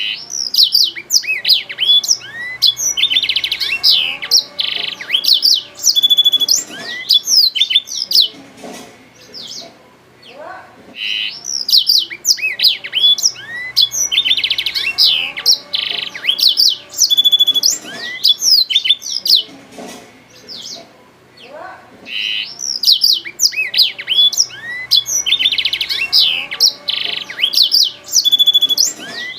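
Blackthroat (black-throated canary) singing its long, fast song of rapid twittering trills and whistled swooping notes. The song comes in bouts of about eight to nine seconds with short pauses between them.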